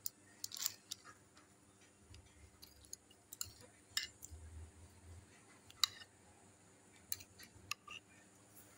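Metal fork tapping and clicking against a ceramic dish while pressing bread slices into beaten egg: scattered light clicks, the sharpest about six seconds in.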